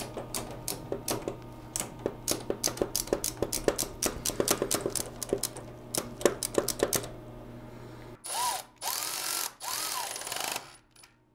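Rapid irregular clicking from a hand screwdriver working a hose fitting, over a steady low hum. About eight seconds in, a cordless drill/driver runs in three short bursts, its motor whine rising and falling in pitch each time.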